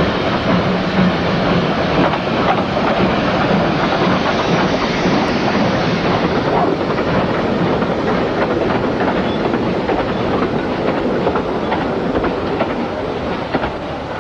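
Steam train running along the track: a steady, loud rush of noise with many quick clicks of wheels clattering over the rails, easing off slightly near the end.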